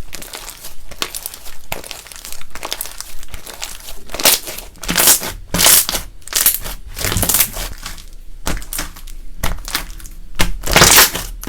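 Slime being mixed and squished by hand, in irregular bursts of noise, loudest about halfway through and near the end.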